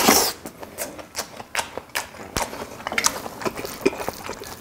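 Close-miked eating of a mouthful of cockle bibimbap (rice mixed with blood cockles and vegetables): a loud bite right at the start, then a run of quick, irregular wet clicks and smacks of chewing.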